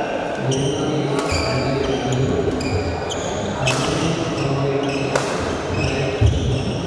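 Badminton shoes squeaking on a wooden indoor court, with two sharp racket-on-shuttlecock hits a second and a half apart near the middle and a low thud from a footfall near the end, echoing in a large hall.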